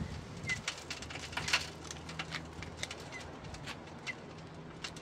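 Scissors snipping through the roots of a shimpaku juniper during root pruning: a series of short, sharp clicks at an uneven pace. Birds call faintly in the background.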